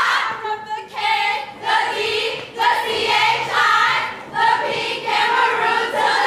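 A group of young women singing in unison, in short phrases with brief breaks about once a second.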